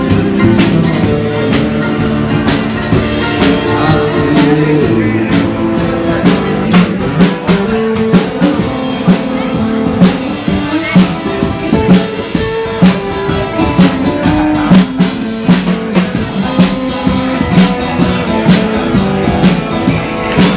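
Live band playing: acoustic guitar and drum kit with a steady beat.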